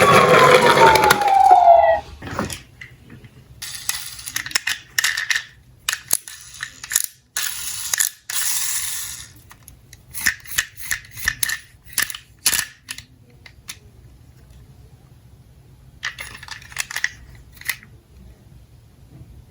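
A siren wail ends in a falling sweep within the first two seconds. Then diecast toy cars clatter down a slope in bursts of clicks and rattles, with a pause before a last short rattle near the end.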